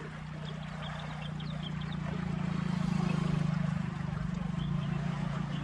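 A motor engine running with a low, steady drone and a fast, even pulse, getting louder toward the middle and easing a little near the end, over the rush of flowing canal water.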